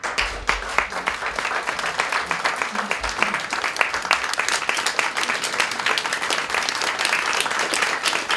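Audience applauding: dense, steady clapping from a seated crowd in a hall.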